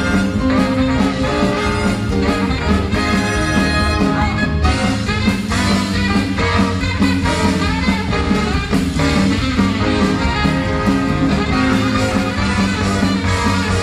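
Live swing band playing an instrumental passage: saxophones, trumpets and trombone over drums and upright bass.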